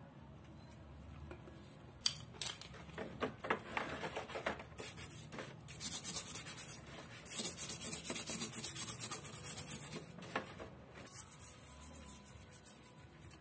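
Rubber-gloved hands scrubbing a power tool's plastic housing coated in wet white powder, then a toothbrush scrubbing a plastic part: quick rubbing and scraping strokes, densest in the middle and lighter near the end.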